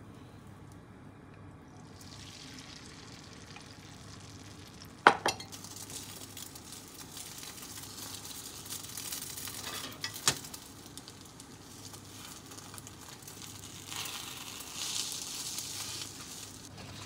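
Beaten egg sizzling in a hot square iron tamagoyaki pan as a rolled Japanese omelette cooks. The sizzle starts about two seconds in and swells near the end, with two sharp knocks, about five and ten seconds in, the first the loudest sound.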